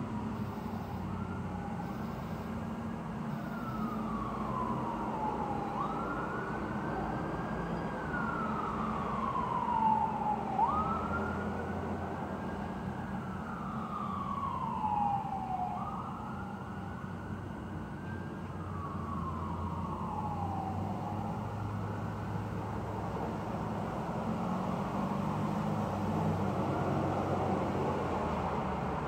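Emergency vehicle siren wailing: slow sweeps that rise quickly and fall away, about one every four seconds, growing fainter near the end, over a steady low rumble.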